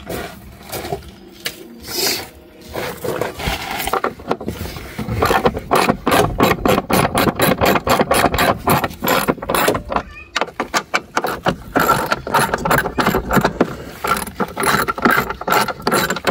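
A ratcheting hand tool clicking in quick runs, several clicks a second, as fasteners on the tractor's under-dash panel are worked loose. The first few seconds hold only quieter handling noise.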